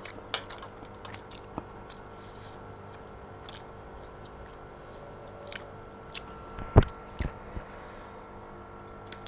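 A person eating chicken noodles (mie ayam): chewing with scattered small wet mouth clicks, and one sharp, louder knock about seven seconds in, with two smaller ones just after.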